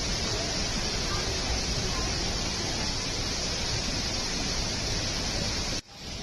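Heavy rain falling, a steady hiss, with a brief sharp dropout near the end.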